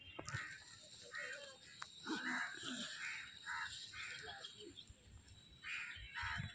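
Crows cawing: a run of short caws, one after another, with a brief pause about two-thirds of the way through before they start again.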